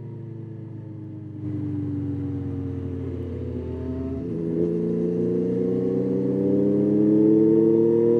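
Yamaha Tracer 9's 890 cc inline-three engine under way. Its note falls for the first four seconds or so, then changes and climbs steadily, getting louder as the bike accelerates.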